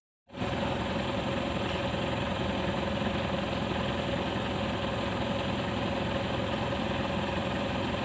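Engine of a pickup truck loaded with oil palm fruit bunches, running steadily while the truck is stuck in deep mud.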